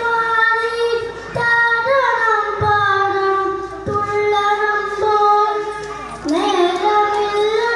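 A boy singing a Malayalam poem into a microphone in a high voice, holding long notes with slow glides in pitch; about six seconds in the melody dips low and climbs back.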